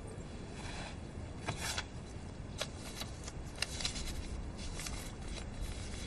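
A small paper note being handled and unfolded: scattered light rustles and crinkles over a low, steady background hiss.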